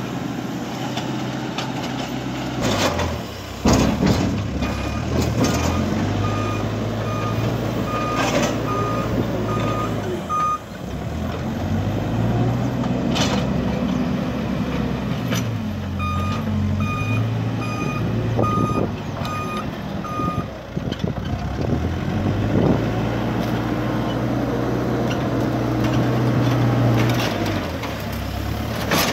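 Cat 432F backhoe loader's diesel engine working while loading manure, its pitch rising and falling, with a reversing alarm beeping steadily in two runs of several seconds and a few sharp knocks.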